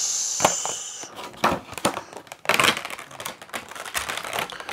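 Funko Pop packaging being handled and opened: a clear plastic insert crinkling and cardboard rustling, with many small clicks and rustles, and a brief steady hiss in the first second.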